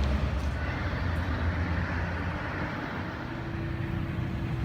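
Street traffic: a motor vehicle going by, with a steady low hum that joins about three seconds in.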